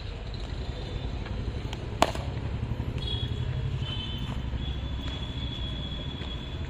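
A cricket ball striking a bat once, a single sharp crack about two seconds in, over a steady low outdoor rumble.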